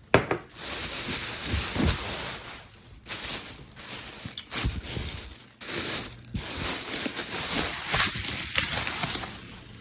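Plastic grocery bags rustling and crinkling close by, with scattered short knocks, as groceries are pulled out of them.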